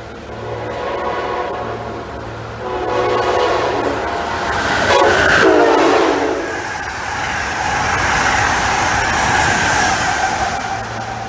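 Amtrak passenger train's horn sounding as it approaches at speed: two shorter blasts, then a louder, longer one whose pitch drops as the train passes. The rush and wheel noise of the cars going by at speed follows.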